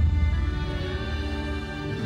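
Background music with held chords and a heavy bass.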